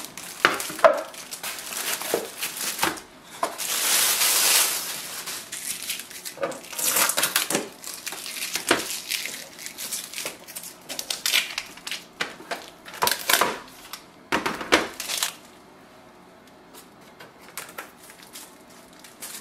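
Plastic wrapping crinkling and styrofoam packing rubbing and squeaking as a flatbed scanner is unpacked by hand, with small knocks and clicks of handling. The loudest is a long rustle about four seconds in; the last few seconds are much quieter, with only faint clicks.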